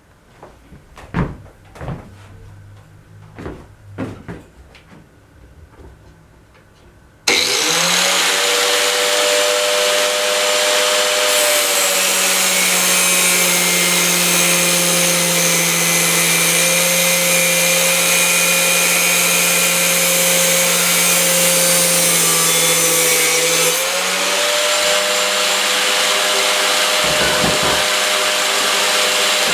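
A few knocks and clicks, then a Forte EG 8-125 N angle grinder is switched on and spins up with a steady high whine. About four seconds later its cut-off disc bites into a chrome-plated steel tube held in a grinder stand: the motor speed drops a little and the cutting hiss rises for about twelve seconds. Near the end the disc comes free and the grinder runs up to free speed again.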